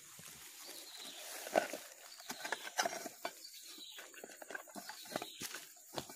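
Grass blades rustling and brushing close by, with irregular light knocks and clicks as a slatted wooden fish box is handled and opened.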